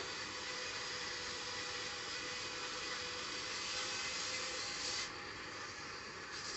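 Sawmill band saw running, its blade cutting lengthwise through a timber plank with a steady hiss. About five seconds in, the cutting noise thins out for a moment, then comes back near the end.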